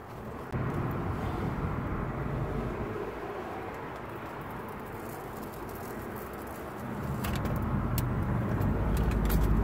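Wood fire burning in a small box stove: a steady low rushing noise with a few sharp clicks through it, the low rumble growing louder over the last few seconds.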